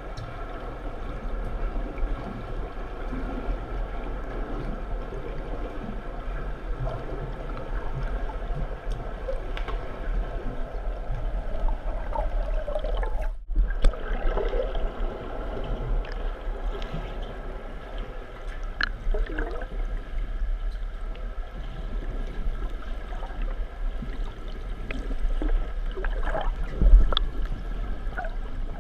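Pool water heard underwater: a steady muffled gurgling and churning with a low hum underneath. It swells several times as the breaststroke swimmer's strokes and bubbles pass close by, and cuts out briefly about halfway through.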